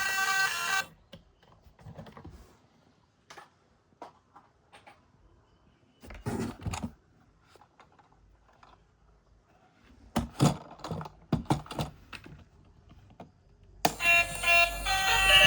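Scattered light clicks and taps of toys being handled, bunched about six seconds in and again from about ten to twelve seconds in. Background music stops about a second in and comes back near the end.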